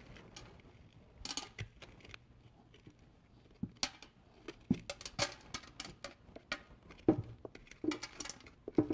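A spoon scraping the seeds and stringy membrane out of a halved butternut squash: irregular short scrapes and taps, busiest near the end.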